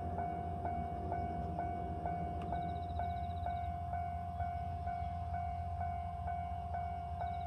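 Japanese railway level-crossing warning bell ringing, a sharp ding repeating about twice a second while the crossing barrier is down for an approaching train. A low steady rumble lies beneath it.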